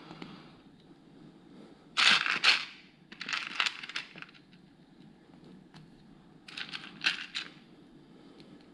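Small plastic building pieces being handled and rummaged through by hand, rattling and clicking in three short bursts.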